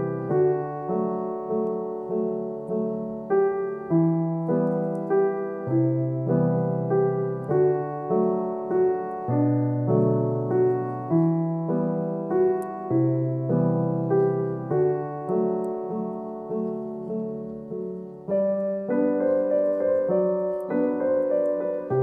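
Background piano music: a gentle melody over chords, each note struck and then fading, with the texture growing fuller a few seconds before the end.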